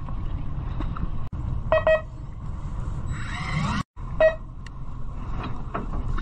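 Steady low rumble of a fishing boat's engine, with short electronic beeps, a quick double beep about two seconds in and a single one a bit past four seconds.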